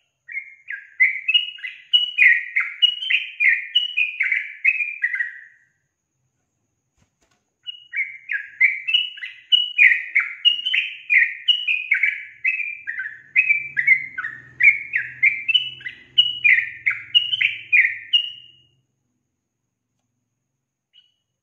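Yellow-vented bulbul (trucukan), a female according to the uploader, singing in two long runs of quick, bubbly, repeated notes. The runs are about five and eleven seconds long, with a pause of about two seconds between them, and a single short note follows near the end.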